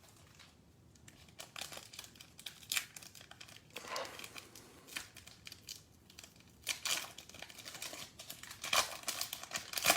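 Plastic trading-card pack wrapper crinkling and being torn open by hand, in irregular crackles that come in louder clusters.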